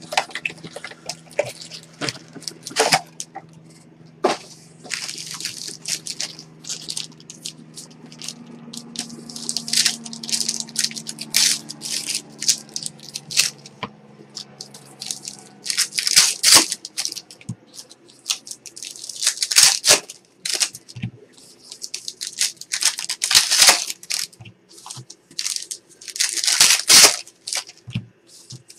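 Foil wrappers of baseball card packs crinkling and rustling in repeated short bursts as the packs are pulled from the box and handled.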